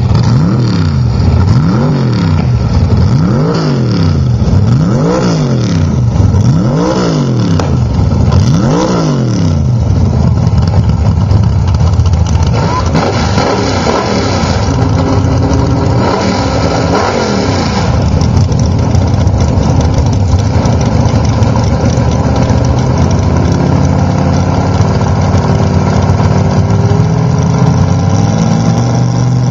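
Chevrolet S-10 pickup's engine revved repeatedly, about six quick blips up and down in the first ten seconds and a few slower ones after, then settling into a steady idle.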